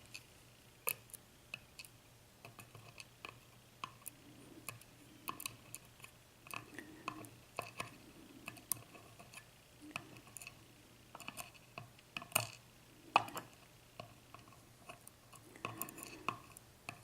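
Faint, scattered light clicks and clinks of small metal lock parts and tools being handled on the bench, irregular and a few each second.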